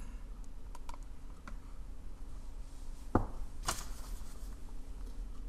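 A few short clicks from a computer mouse as the recalculation is started, the sharpest a little after three seconds in, over a steady low electrical hum.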